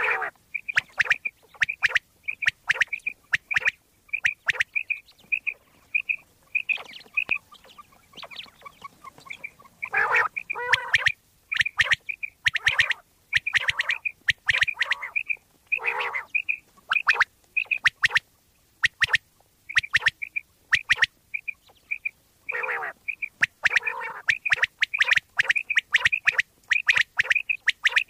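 Common quail calling: runs of short, sharp, high notes, several a second, with brief pauses between runs. Harsher, lower calls break in a few times.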